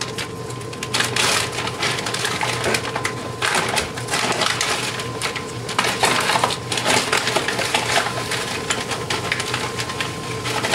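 Diced carrots, celery and onion sizzling in melted butter in a frying pan: a steady, dense crackle of small pops.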